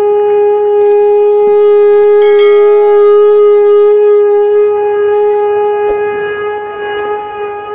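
A siren sounding one loud, steady held tone, the customary signal that the tournament is officially opened, with a few sharp clicks over it; it eases off near the end.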